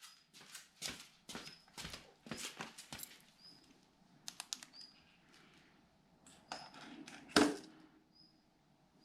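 A series of irregular sharp clicks and knocks, the loudest one about seven seconds in, with short faint high chirps between them.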